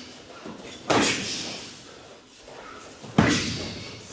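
Two loud slapping strikes land in full-contact Kyokushin sparring, about a second in and again near the end, each echoing in a large hall.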